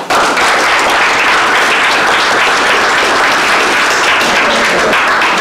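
Audience applauding: loud, steady clapping from a room full of people that starts abruptly and fades away right at the end.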